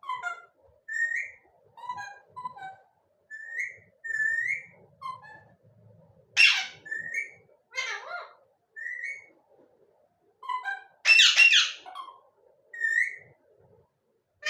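Pet parrot giving a run of short whistled notes, many sliding upward, broken by louder harsh calls about six seconds and eleven seconds in.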